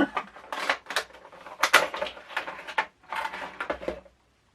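Cardboard Funko Pop packaging being handled: irregular rustling, scraping and light knocks that stop about four seconds in.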